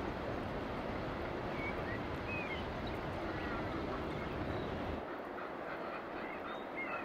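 Outdoor coastal ambience: a steady wind rush with a low rumble that drops away about five seconds in, and scattered short, high bird calls.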